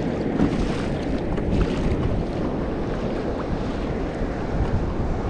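Wind buffeting the microphone over water sloshing and splashing against a Hobie kayak's hull out at sea.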